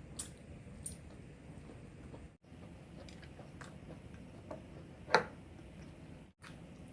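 Close-up eating sounds: soft chewing with a few light clicks, and one loud sharp snap of a bite about five seconds in.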